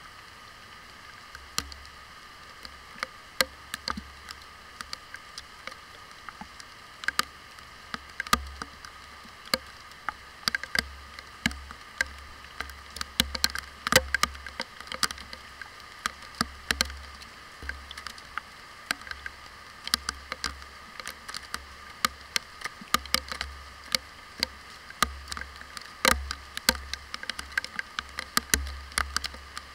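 Raindrops striking the plastic waterproof housing of an action camera: irregular sharp ticks, a few a second, over a steady hiss of rain.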